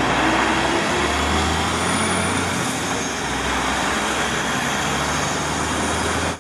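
MAN concrete mixer truck driving in city traffic: a steady diesel engine rumble over continuous road and traffic noise.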